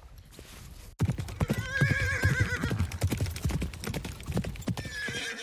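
Horse hooves clopping in a rapid beat, starting suddenly about a second in, with a horse whinnying over them and a second, shorter whinny near the end.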